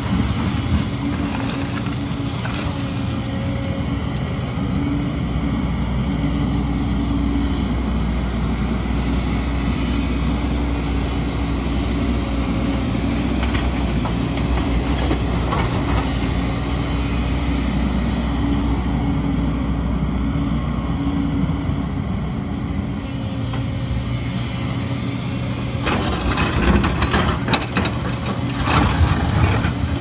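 JCB tracked excavator's diesel engine running steadily as the machine digs and swings its loads. Over the last few seconds there is a run of clattering as rock and soil grind and knock against the steel bucket.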